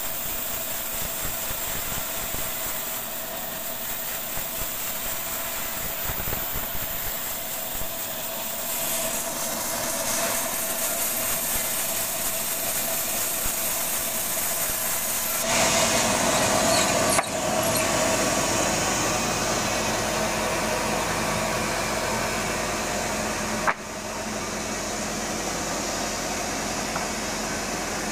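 Band sawmill running steadily while its blade saws lengthwise through a rambutan-wood board, with a steady whine over machine noise. It grows louder about halfway through.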